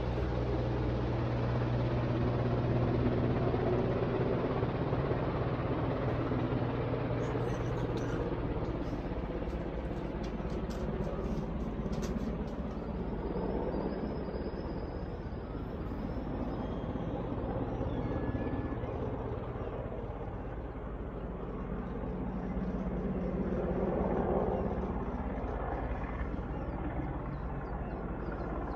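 Steady drone of a nearby AgustaWestland AW101 search-and-rescue helicopter's rotors and turbines, a low thrum that swells a little late on.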